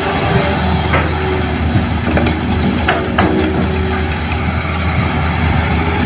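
A Hitachi hydraulic excavator's diesel engine running steadily under load while it tips a bucket of soil into a dump truck's bed, with a few knocks and clunks as the load drops in around the middle.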